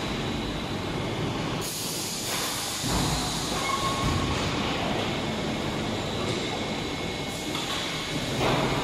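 Concrete block production line machinery running, with steady mechanical noise from the rack elevator that stacks pallets of fresh blocks. A hiss comes in about two seconds in.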